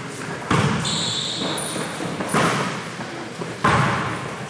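Basketball bouncing on a gym floor: three loud thuds about a second and a half apart, each trailing off slowly in the hall.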